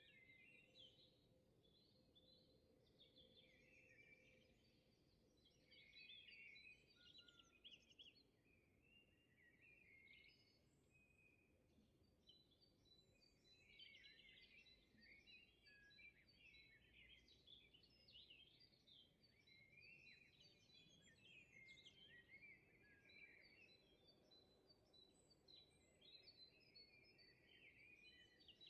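Faint birdsong: small birds chirping and twittering almost without pause, with a thin high note repeated quickly through the second half.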